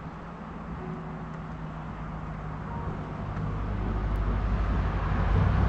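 A car approaching on the road, its engine and tyre noise growing steadily louder.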